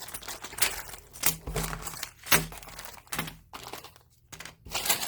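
Plastic bags of Lego parts crinkling and rustling as they are handled, in short irregular bursts.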